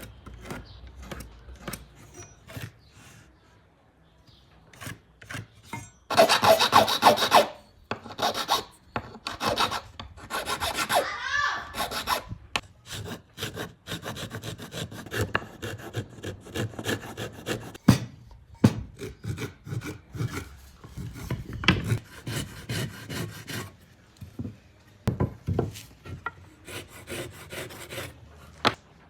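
Hand tool worked on cedar wood: a long series of short scraping and rubbing strokes like a rasp or handsaw, with a loud quick run of strokes about six seconds in.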